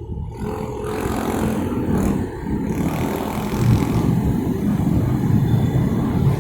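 Road traffic at a crossroad: vehicle engines and tyres making a dense, low rumble that swells over the first second and then holds steady.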